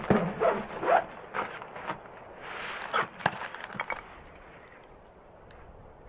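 Gear being rummaged out of a backpack on a wooden log bench: a run of sharp knocks and clicks with a short rustle of fabric, dying down after about four seconds.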